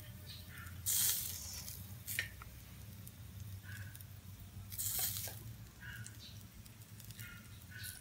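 Pork chunks sizzling on a charcoal barbecue, with two louder surges of hissing, one about a second in and another about five seconds in.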